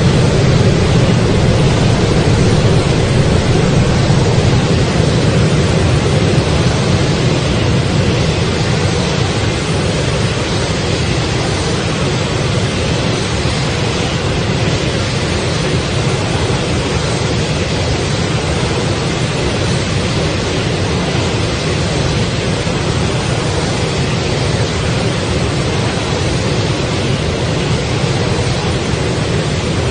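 Loud, steady rushing noise with no distinct events, heaviest in the low range.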